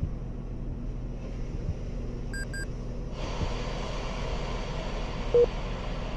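Steady low rumble of road traffic. Two short electronic beeps come about two and a half seconds in, the hiss grows brighter about three seconds in, and a single short tone sounds near the end.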